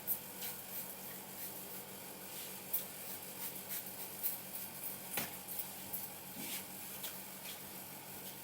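Hands working on hair and scalp during a head massage: irregular light taps, slaps and rubbing scuffs, the sharpest about five seconds in, over a steady low hum.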